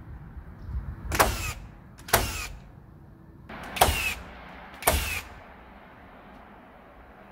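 Cordless power tool fastening vertical roof battens: four short bursts, each with a rising motor whine, spaced about a second or more apart.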